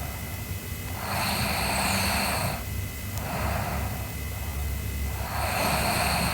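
A sleeping girl snoring: two loud, noisy breaths about four seconds apart, each followed by a softer breath.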